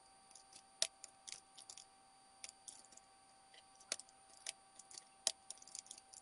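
Typing on a computer keyboard: faint, irregular key clicks, a few of them louder than the rest.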